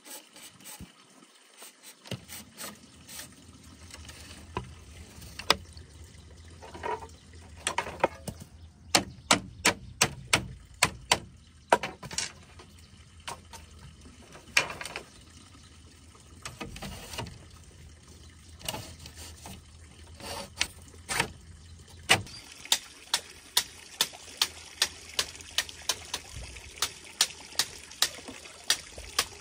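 Hammer knocking nails into split-bamboo slats and a bamboo frame: runs of sharp knocks, and from about two-thirds of the way in an even series of about two to three strikes a second.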